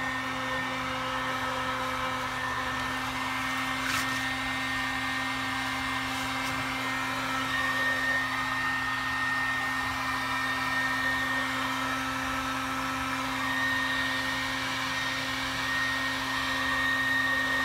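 Electric heat gun running steadily, its fan blowing hot air onto the aluminium gearbox cover to heat the bearing housing so the bearing can be knocked out. A constant hum under the fan noise, with a faint high whine in the second half.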